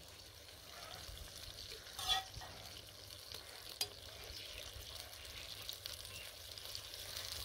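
Spice masala sizzling gently in a kadhai as yogurt is stirred into it, the frying growing slowly louder, with a louder stirring scrape about two seconds in and a sharp click just before four seconds.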